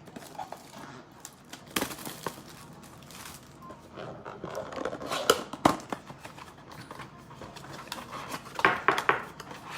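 Trading-card pack wrappers and a cardboard blaster box being handled and torn open: irregular crinkling, tearing and tapping, with a dense run of crackles near the end.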